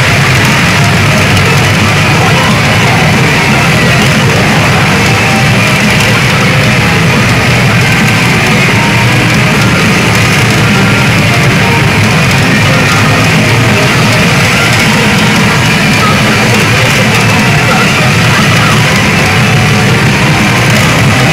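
Loud rock-style music with guitar playing at an even level from a 'Midori Don Hanabi de Bon Giorno' pachinko machine's speakers during an on-screen sequence, with a dense din mixed in.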